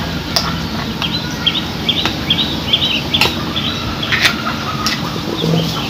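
Small birds chirping over and over in quick short calls, with several sharp clicks spaced about a second apart and a low steady hum underneath.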